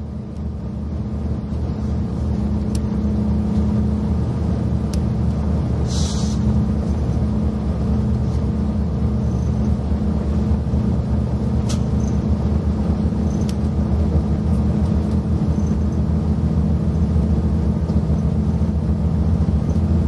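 JR Hokkaido 183 series diesel railcar's engines and running gear rumbling, heard inside the passenger cabin as the train gets under way. The sound swells over the first few seconds and then holds steady, with a few light clicks and a short hiss about six seconds in.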